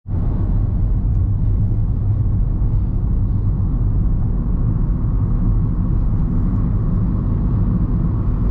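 Car on the move, a steady low rumble of road and running noise with no speech.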